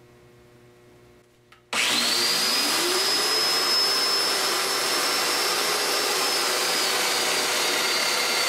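A Festool Domino joiner switches on about two seconds in, its motor whining up to speed and then running steadily, with the dust extractor hooked to it running alongside. This is the joiner at work cutting a mortise for a domino tenon.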